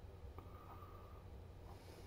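Near silence: a low, steady room hum with a few faint ticks.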